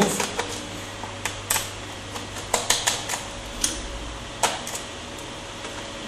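Irregular sharp clicks and taps of a small screwdriver meeting the screws and plastic bottom panel of a Dell Vostro 3550 laptop as the panel screws are being undone.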